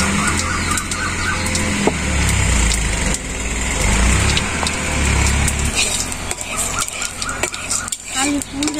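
Low, steady engine drone that cuts off about six seconds in, with scattered light clicks.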